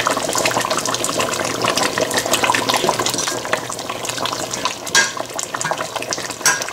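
A steel ladle stirring a pot of simmering aloo gosht (mutton and potato curry), the gravy bubbling and crackling continuously, with a couple of sharper knocks of the ladle against the steel pot near the end.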